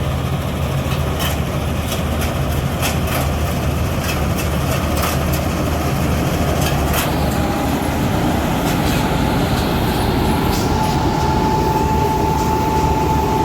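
John Deere combine harvester running under work, its engine a steady low drone with irregular clicks and clatter from the machinery. A thin steady whine comes in briefly about seven seconds in and then holds from about eleven seconds on.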